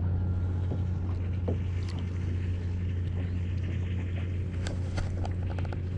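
A steady low hum with scattered light clicks and taps.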